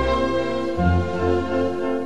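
Slow orchestral background music: held string and brass chords over a low bass note that moves to a new pitch about three-quarters of a second in.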